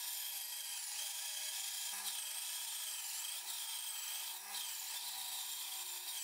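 Bandsaw blade cutting through a thick oak blank: a steady sawing noise with a high whine that wavers in pitch.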